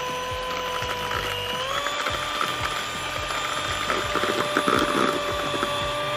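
Electric hand mixer running as its beaters whip eggs and sugar to a foam, a steady motor whine that steps up in pitch about two seconds in as the speed is raised. A patch of rattling clicks from the beaters comes about four to five seconds in.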